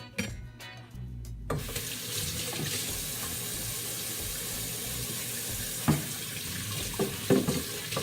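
Kitchen faucet turned on about a second and a half in, water running steadily into the sink while hands are washed. A few clunks near the end.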